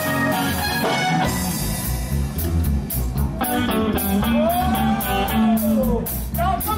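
Live soul band playing, led by electric guitar over a drum kit, with a long held note that rises and then falls from about four seconds in.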